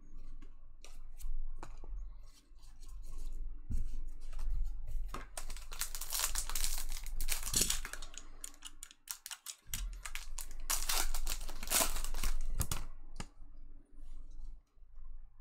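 Foil wrappers of hockey trading-card packs being torn open and crinkled, in two stretches of a few seconds each, between light clicks and slides of cards being handled.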